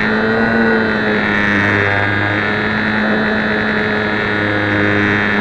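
Electric motor and propeller of a HobbyZone Champ RC plane running steadily in flight, heard through the onboard keychain camera's microphone as a loud, even whine. The plane is carrying a 17-gram camera that it can barely keep in the air.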